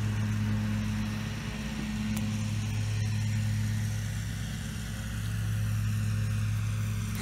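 Steady low hum, with a few faint clicks and scrapes of a knife working at the lid of a wooden crate.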